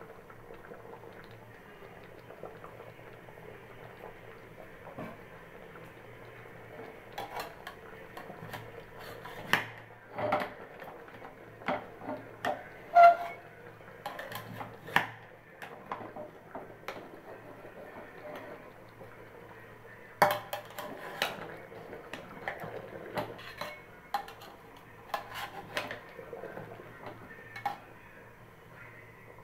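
A metal spoon knocks and clinks against the rim and sides of an aluminium pressure cooker while bottle gourd pieces are stirred inside. It comes as an irregular string of sharp knocks, in two spells after a quiet start, over a low steady hum.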